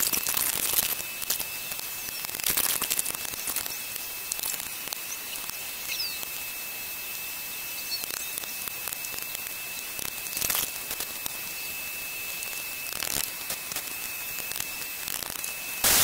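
Angle grinder running with a steady high whine and gritty hiss, grinding a newly fitted steel screw flush on a door-latch assembly. It grows louder as the wheel bites, about two and a half and ten seconds in, and again at the very end.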